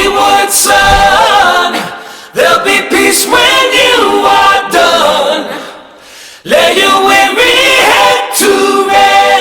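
Several voices singing in harmony without instruments, in three long phrases with short breaks between them.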